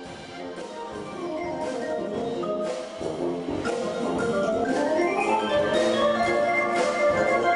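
A live brass band playing jazz with drums, growing louder; about halfway through, a Hammond organ sweeps upward in pitch into held chords.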